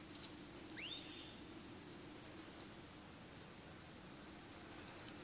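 Faint outdoor field ambience with a short whistle that rises and then holds, about a second in, and two quick runs of high clicks, one midway and one near the end.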